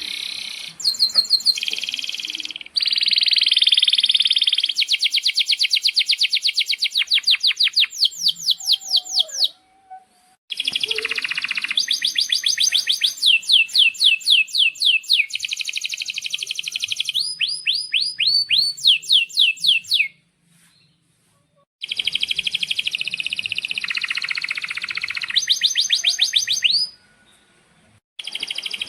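Domestic canary singing in long phrases of fast trills and rolls, made of rapidly repeated sweeping notes, with short pauses between phrases.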